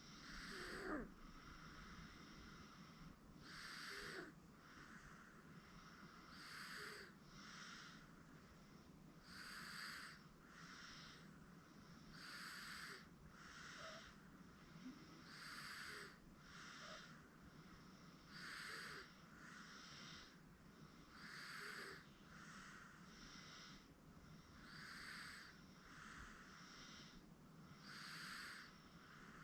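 Sleeping 8-month-old baby breathing softly with a light snore, faint and regular: a stronger hissy breath about every three seconds with a softer one in between.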